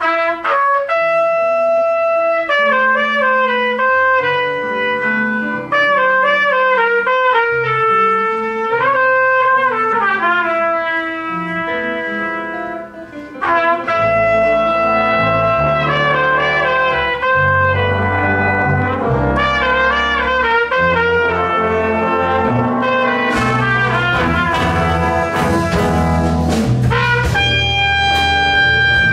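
Jazz big band playing live: trumpets, trombones and saxophones in sustained chords over piano, bass and drums. The band comes in together at the very start, and the drums and cymbals grow stronger in the last third.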